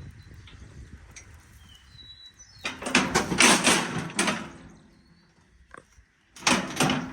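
Cattle mooing twice: a long call lasting over a second, then a second call starting near the end.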